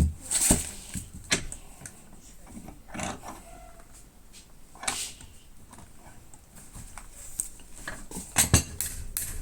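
Scattered knocks and clatters of hand tools and wooden pieces being handled on a workbench, with the loudest knocks near the start and again near the end.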